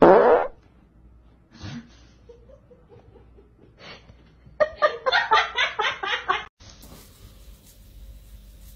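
A short loud sound sliding steeply down in pitch, then a person laughing in a fast run of bursts for about two seconds.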